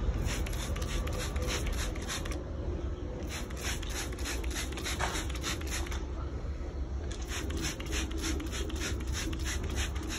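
Trigger spray bottle spritzing iron remover in quick repeated pumps, about five a second, in three runs with short pauses between them.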